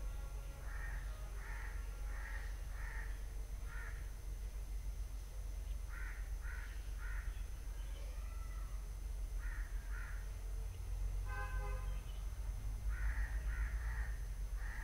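Crows cawing in short runs of two to five caws, about two calls a second, over a steady low hum. A short steady pitched tone sounds a little after eleven seconds in.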